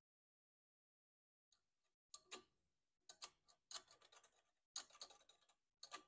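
Faint, light clicks and taps of small metal parts being handled at the carburetor and governor linkage of a small mower engine, coming in irregular clusters.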